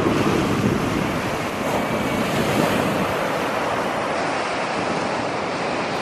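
Pacific Ocean surf breaking and washing up a sandy beach: a dense rush of white water, loudest in the first second or so, then running on steadily.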